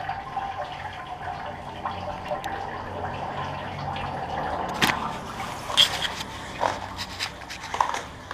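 Water trickling and dripping as a bicycle is wiped down with a wet wash mitt. From about halfway there are scattered sharp knocks and clicks.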